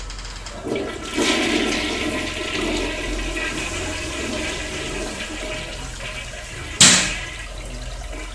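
Toilet flushing: water rushes in about a second in and slowly subsides. A single sharp bang comes near the end and is the loudest sound.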